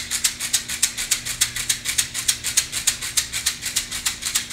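Hand rattle shaken in a steady, even rhythm of about four to five shakes a second.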